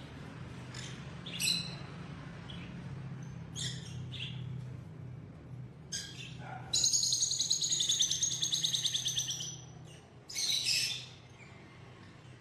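Pet bird chirping: several short high chirps, then about seven seconds in a loud, fast, rattling trill lasting some three seconds, then another chirp, over a steady low hum.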